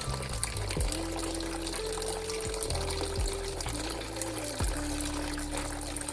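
Background music with a simple melody and bass notes, over water trickling and pouring from a toy kitchen sink's tap.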